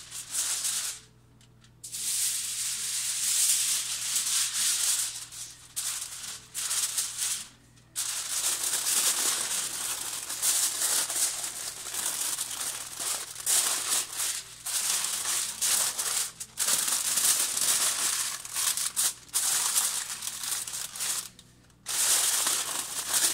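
Aluminium foil crinkling and rustling as a sheet is pulled over a roasting pan and crimped down around its edges, in long stretches with a few short pauses.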